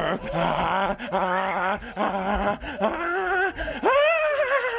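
Drawn-out wailing calls, about five in a row, each bending up and down in pitch; the last one, near the end, rises and falls in a long arch.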